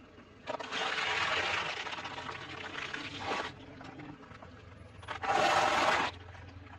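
Eating sounds in two noisy stretches: a long one of about three seconds, then a shorter, louder one about five seconds in.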